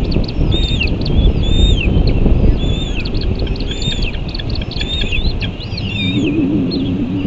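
Red-tailed hawk nestlings chirping at an adult that has brought prey to the nest: a run of short, high, arched chirps, roughly one or two a second, over a steady low rumble.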